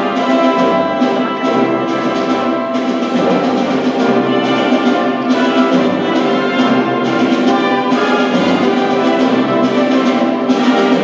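Orchestral music playing sustained chords, with brass prominent over strings.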